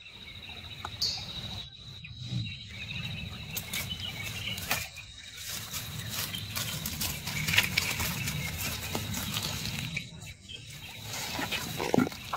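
A ferret rustling and scrabbling through wet leaves and mud in irregular bursts, with short breaks, over a steady high-pitched tone in the background.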